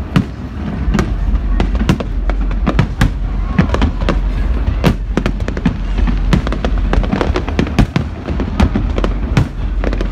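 Fireworks display going off: a rapid, irregular string of sharp bangs and crackles, several a second, over a continuous low rumble.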